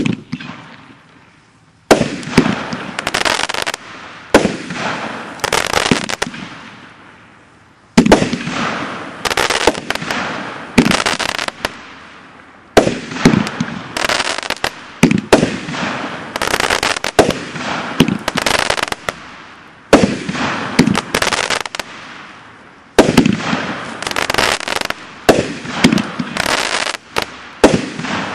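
Consumer multi-shot firework cake ('One Bad Mother-in-Law') firing its shots: repeated sharp bangs from aerial bursts, in volleys of several shots separated by brief lulls.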